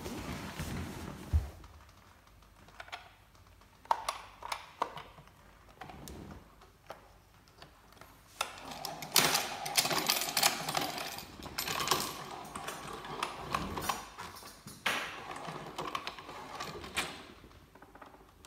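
Plastic parts of a manual meat grinder clicking, knocking and scraping as it is assembled by hand. There is a denser stretch of rapid clattering clicks in the middle while the front ring is turned onto the grinder head.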